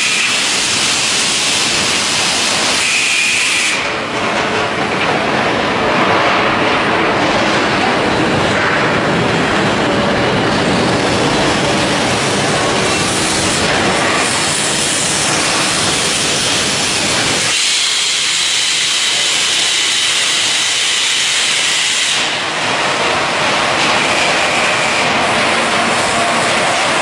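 Loud, steady hissing noise of machinery on a hot-dip galvanizing plant floor. It changes abruptly a few times, and the low rumble drops away for a few seconds past the middle.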